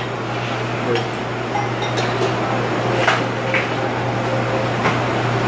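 A few light clinks of chopsticks and a spoon against a ceramic bowl and plates over a steady low hum.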